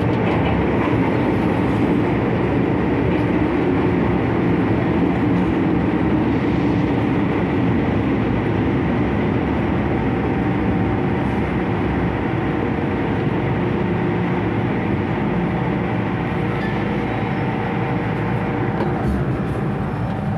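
MTR M-Train electric multiple unit running, heard from inside the car: a steady rumble of wheels on rail and running gear with a faint hum. It gets slightly quieter over the second half.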